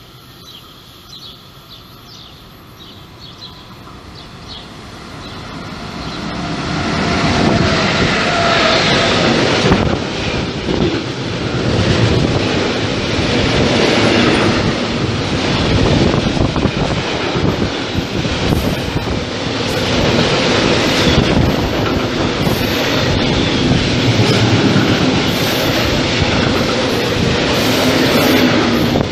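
Freight train of bogie hopper wagons approaching and running through the station. Its noise grows over the first several seconds, then stays loud and steady with the wagons' wheels clattering over the track.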